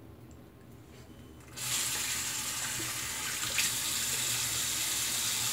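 A bathroom sink tap is turned on about a second and a half in, and water then runs steadily into the basin, with one brief click partway through.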